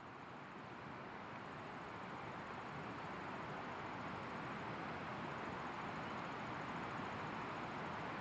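Steady outdoor background noise, an even hiss that fades in and then holds, with a faint high-pitched insect trill above it.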